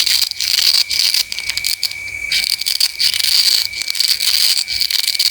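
Crisp crunching and crackling of a knife cutting through fresh fruit or vegetables, many short cuts and snaps in quick succession, over a steady high-pitched whine.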